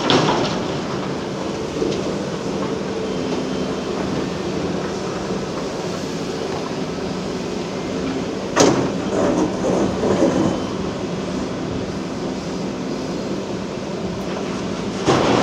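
Large hydraulic excavator working in hard rock: its diesel engine runs steadily, with a sharp metallic bang about eight and a half seconds in followed by a couple of seconds of clattering.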